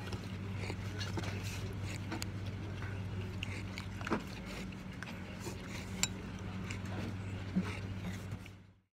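Scattered light clicks of a ceramic soup spoon against a ramen bowl, over a steady low electrical hum and room noise. The sound cuts off suddenly near the end.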